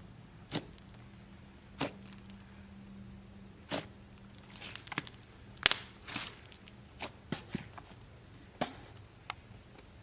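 Slime being squeezed and stretched by hand, making about a dozen sharp, irregular pops and clicks as air pockets burst. The loudest pop comes a little past halfway.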